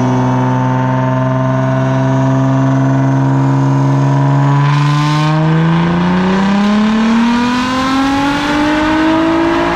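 Nissan GT-R R35's twin-turbo 3.8-litre V6 on a chassis dyno: the engine holds a steady note for about four seconds, then a full-throttle pull begins with a rush of noise and the engine note climbs smoothly through the revs until near the end.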